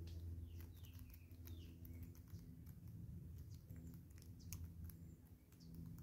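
Southern red-billed hornbills pecking birdseed off a log, heard as faint, irregular sharp taps of bill on wood. A few short chirping bird calls come in the first couple of seconds, over a low steady hum.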